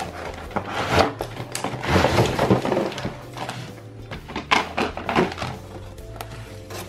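A cardboard toy box and the clear plastic bags of parts inside it being handled and pulled at, with crinkling, rustling and several knocks, heaviest a couple of seconds in. Soft background music runs underneath.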